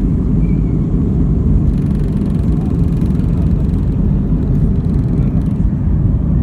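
Jet airliner's engines at takeoff power with a steady, heavy rumble, heard from inside the cabin during the takeoff roll and climb-out.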